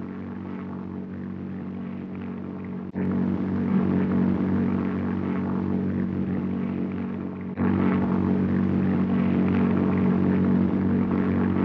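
Propeller aircraft engine droning steadily during a high-altitude climb, on an early sound-film track. It steps up louder abruptly about three seconds in and again near eight seconds.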